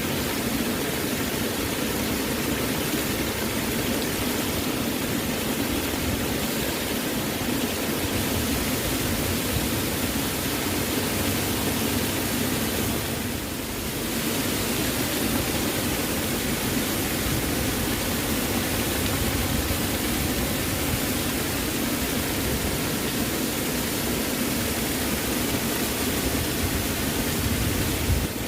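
Waterfall water rushing in a steady, even roar of noise, dipping slightly for a moment about halfway through.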